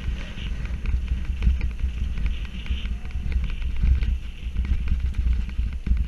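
Mountain bike riding fast over a rough grassy dirt trail: wind buffeting the camera's microphone as a deep rumble, with a constant run of knocks and rattles from the bike jolting over the bumps.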